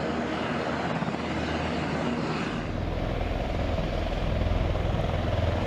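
Helicopter rotors and turbine engines running on the ground, a steady whooshing drone. The sound shifts about halfway through, taking on a heavier low rumble.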